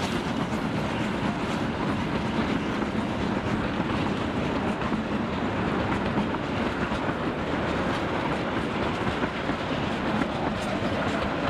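The passenger coaches of La Trochita, a 750 mm narrow-gauge steam train, rolling past on the rails with a steady rumble of wheels and running gear.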